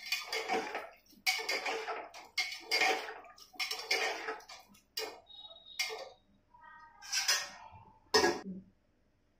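Steel slotted spoon stirring rice and vegetables in water in an aluminium pressure cooker, clattering against the pot in repeated strokes, with a sharp knock about eight seconds in.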